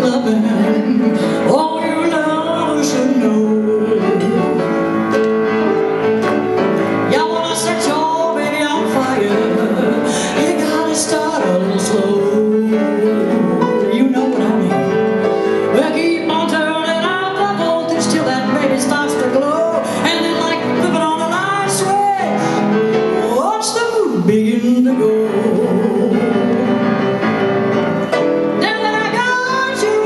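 A woman singing into a microphone with live piano accompaniment.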